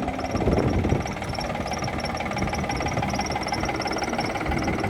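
Tractor engine running steadily, a little louder about half a second to a second in.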